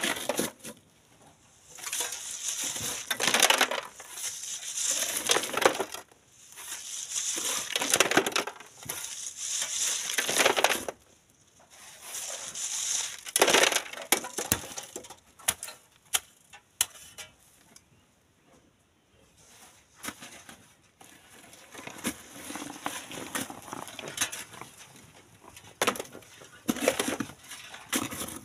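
Steel shovels scraping and digging into sand and gravel and tipping it into a wheelbarrow and onto a wire-mesh sieve, the grit and stones rattling. It comes in bursts a second or two long, one shovelful after another, with a quieter stretch in the middle.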